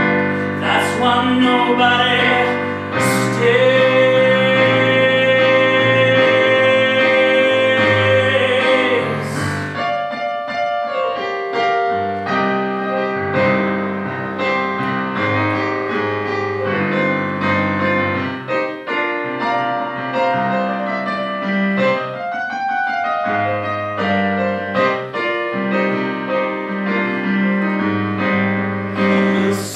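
Live bluesy solo piano song: a man holds a long sung note over chords on a digital stage piano, then the piano plays on alone through most of the rest, and his singing comes back near the end.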